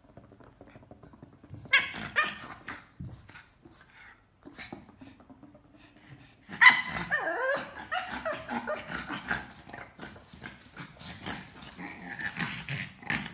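A pug barking in short bursts, sparse at first, then louder and nearly continuous from about halfway through, fussing at its ball out of reach.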